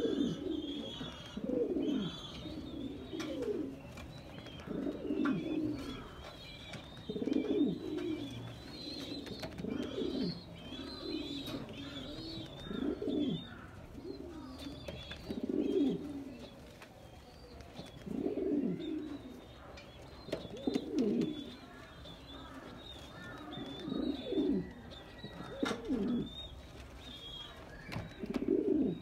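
Spanish pouter pigeon cock cooing in courtship display, a low falling coo repeating every second or two. Faint high chirping runs behind it.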